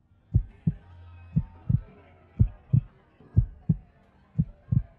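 Heartbeat sound effect: paired low lub-dub thumps about once a second, over a faint hum.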